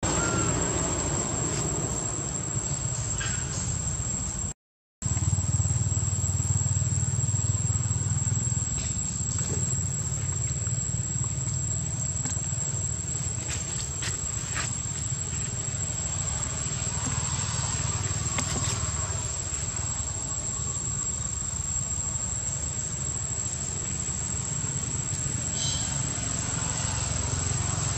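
Outdoor ambience: a steady, unbroken high-pitched insect drone over a low steady rumble, with a few faint ticks. The sound drops out completely for a moment about five seconds in.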